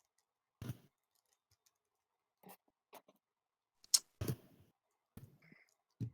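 A few scattered small clicks and taps, with one sharper, louder click about four seconds in.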